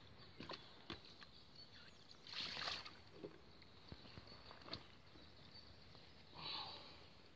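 Faint handling noises from a large carp on a wet vinyl unhooking mat: scattered soft taps and knocks, with two short rustling hisses about two and a half and six and a half seconds in.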